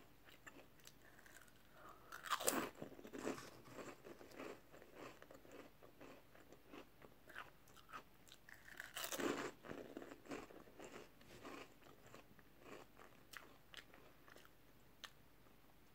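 Crisps being bitten and crunched, then chewed. There are two louder bites, about two and a half seconds in and about nine seconds in, with lighter crunching in between.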